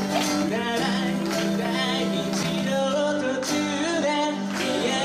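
Background music with a sung vocal line over a steady beat.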